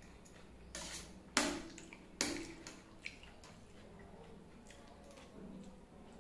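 A metal fork scraping and clinking against a steel plate as chow mein noodles are twirled: a few sharp strokes in the first half, each fading quickly. Fainter eating sounds follow.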